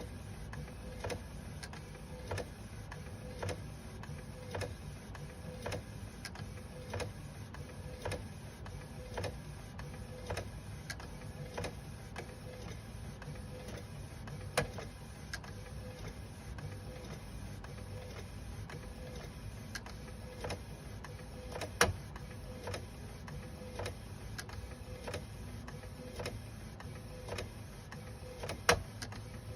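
FL200h compact food printer running a print job: a steady low hum under a regular clicking about twice a second, with three sharper clacks spread through it. This is the abnormal noise that comes with the printed lines turning out jagged.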